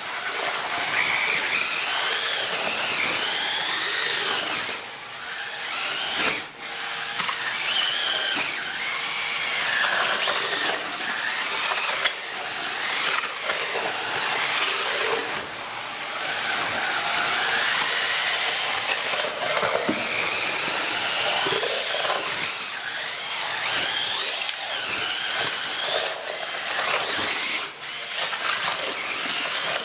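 Makita cordless drill driving a paddle mixer through wet concrete in a plastic bucket, its motor whine rising and falling in pitch as the speed changes. It eases off briefly a few times while the concrete is mixed to consistency.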